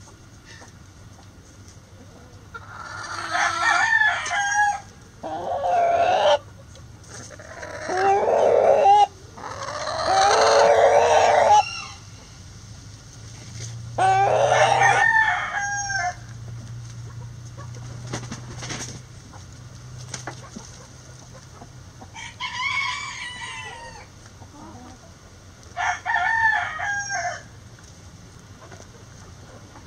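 Backyard roosters crowing again and again, about seven crows of one to two seconds each. The crows come close together in the first half and further apart later on.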